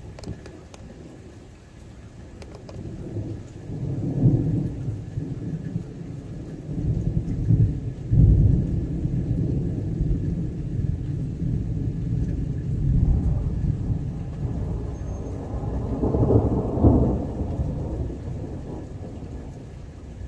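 Thunder rolling after a nearby lightning flash: a long, deep rumble that builds a few seconds in, swells again several times, and dies away near the end.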